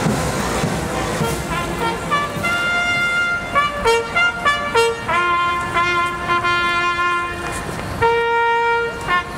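A solo brass instrument playing a slow ceremonial call, with held notes broken by short ones. The first couple of seconds are a fuller, denser mix before the single line of notes takes over.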